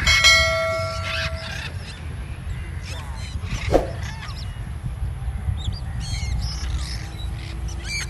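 A bell-like chime rings at the start and fades within about a second and a half. Then macaws and other parrots in flight give scattered short screeching calls, with one loud squawk about four seconds in, over a steady low wind rumble on the microphone.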